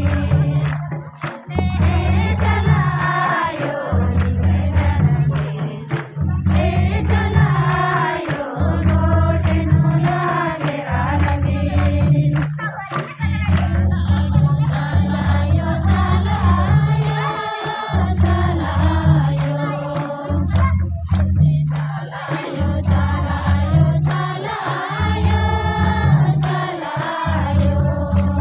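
Group singing of a Kurukh devotional bhajan over a heavy repeating drum beat, with jingling percussion marking a steady quick rhythm.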